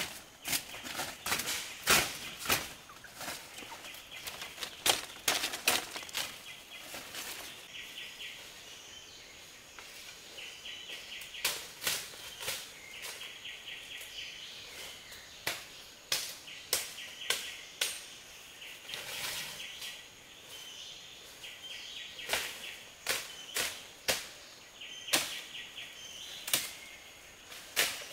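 Irregular sharp clicks and snaps, several a second at times, over a background of rapid high pulsing chirps.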